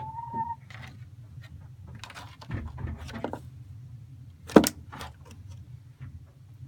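Scattered rustling and knocking from the tub being wiped and dried out, with one sharp knock about four and a half seconds in, over a steady low hum.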